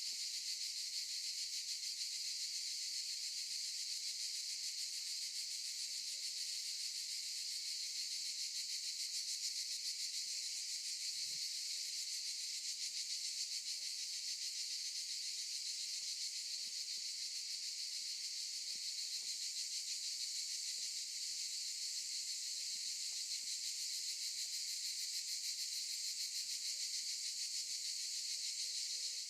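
A dense chorus of cicadas buzzing continuously in a steady high-pitched drone, with no rise or fall.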